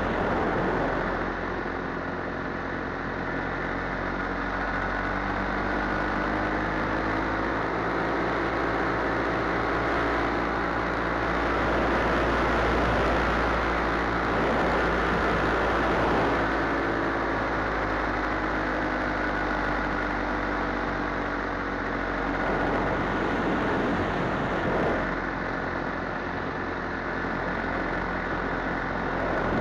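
Paramotor engine and propeller running steadily in flight, its pitch wavering slightly, over a rush of air.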